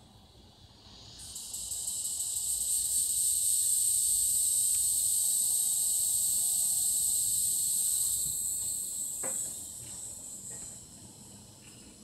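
Cicadas buzzing high and steady. The buzz swells up about a second in, holds loud for several seconds, then fades away.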